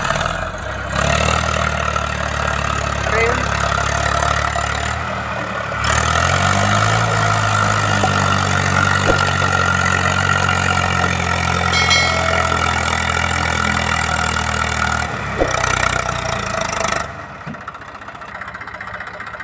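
Eicher diesel tractor engine running. It revs up to a higher, louder, steady note about six seconds in and holds it, then drops away sharply about seventeen seconds in.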